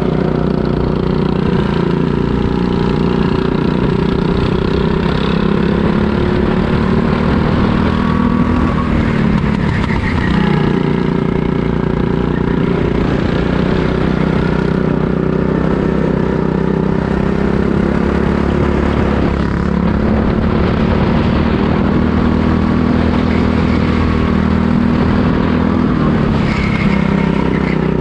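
Racing kart engine running hard under way. Its pitch climbs and falls again and again as the kart speeds up and slows, with a marked drop about ten seconds in and another near the end.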